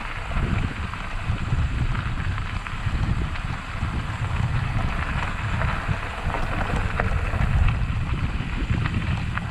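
Bicycle tyres rolling over a gravel trail, a steady rumble with scattered small clicks of stones, and wind buffeting the handlebar-mounted camera's microphone.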